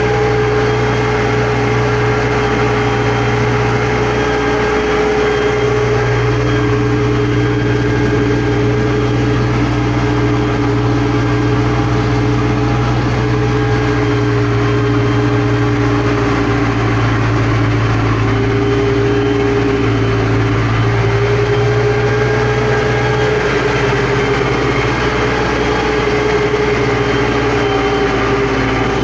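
MTZ-892 Belarus tractor's four-cylinder diesel engine running steadily as the tractor drives, heard from inside the cab, its pitch shifting slightly now and then.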